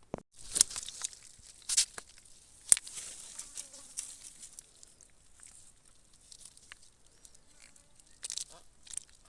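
Irregular sharp rustling and crackling, a few loud snaps in the first three seconds and two more near the end, with softer scratchy rustles between.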